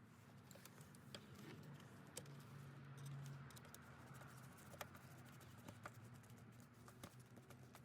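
Near silence with faint, scattered light clicks and taps of small parts being handled.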